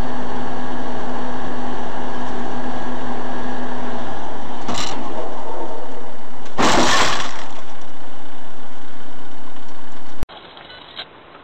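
Loud, steady car driving noise recorded by a dash camera, with a short bang about five seconds in and a louder impact of about half a second around seven seconds in, typical of a car collision. The sound cuts off suddenly near the end.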